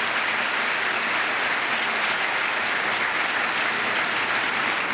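Congregation applauding: a dense, steady clapping that holds an even level.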